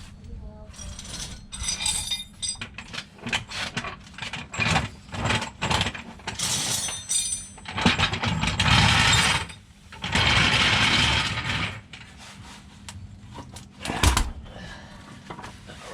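Wrench work on metal while unbolting a torque converter from the flywheel: irregular clicks and clanks of tools and metal parts, two louder rasping stretches of about a second and a half each in the middle, and a sharp clank near the end.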